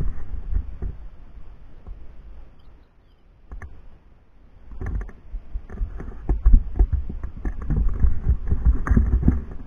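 Wind rumbling on the camera microphone, with irregular scuffs and knocks of handling or footsteps. It dies down briefly around the middle and is heaviest in the second half.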